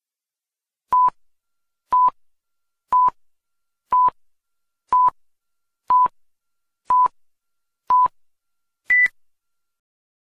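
Electronic countdown beeps: eight short beeps of one pitch, one a second, then a single higher beep about nine seconds in.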